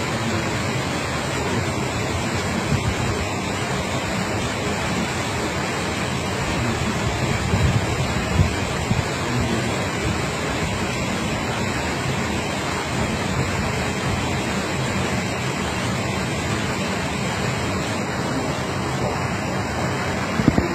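Steady rushing noise, with a few brief louder knocks about eight seconds in.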